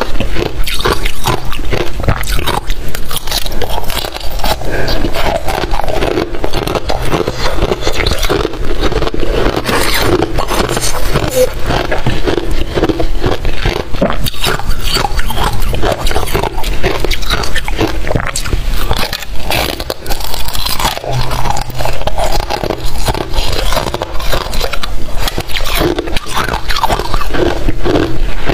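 Powdery freezer frost being broken off by fingers and bitten and chewed close to the microphone: a dense, unbroken run of crisp, crackly crunches.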